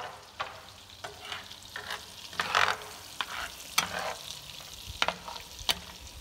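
Chopped garlic frying in melted butter in a frying pan, stirred and scraped around with a spatula in repeated short strokes over a faint sizzle. A few sharp clicks come in the second half.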